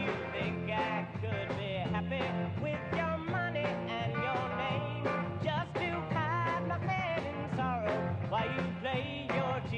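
A 1960s pop-rock song: a young male lead voice singing over a band, with a steady drum beat and a bass line.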